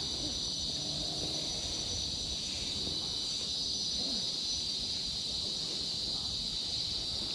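A steady, high-pitched drone of insects (cicadas or crickets) in tropical forest, unbroken throughout.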